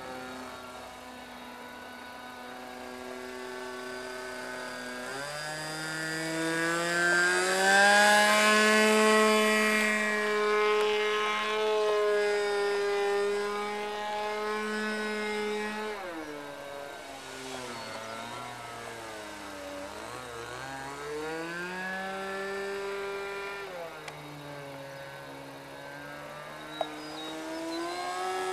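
Thunder Tiger .46 two-stroke glow engine of a radio-controlled model Harmon Rocket III in flight, its pitch rising and falling as the plane climbs, dives and passes. It is loudest about eight seconds in, and its pitch dips deeply around eighteen to twenty seconds.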